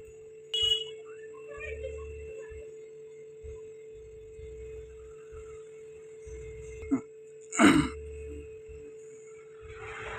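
Metal spoon stirring and scraping a wet lentil mixture inside a hollowed-out round gourd, with a clink about half a second in and a sharper knock near the end, over a steady hum.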